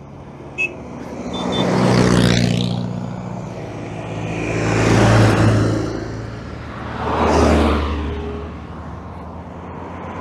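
Three classic cars driving past one after another, each engine and tyre note swelling and fading away, about two, five and seven and a half seconds in; one of them is a Citroën 2CV.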